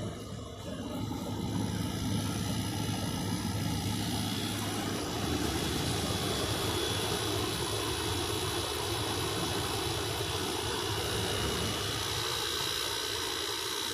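Whirlpool ACD052MM0 5000 BTU window air conditioner running on high fan while cooling: a steady rush of blown air over a low hum, with a few faint high steady tones.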